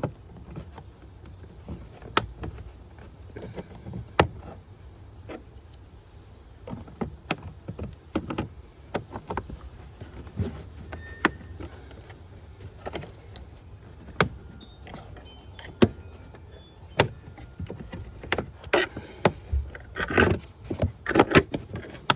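Plastic pry tool working a car's carpet trim panel loose: irregular sharp clicks and knocks of plastic, with a busier spell of rustling and clicking near the end.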